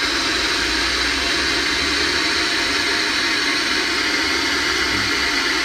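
Compressed air hissing steadily into a dry suit as it is inflated for a leak test. The hiss starts abruptly and is loud.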